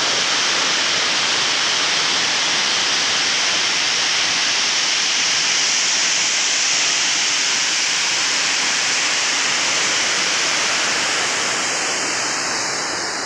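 Tall waterfall plunging into a rocky pool: a steady, loud rush of falling water, loud enough to drown out talk. It grows a little fainter near the end.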